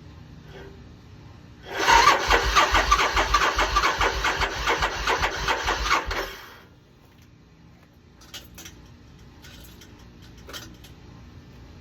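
2006 Suzuki Boulevard C90T's V-twin being cranked by the electric starter for about four and a half seconds with rapid, even pulses, then the cranking stops. The engine turns over but does not catch.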